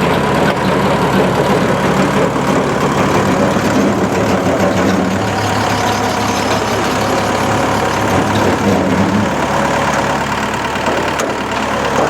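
Rally car engine idling steadily.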